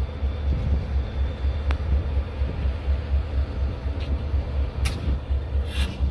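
Diesel locomotives idling with a low, evenly pulsing rumble, with a few short hisses near the end.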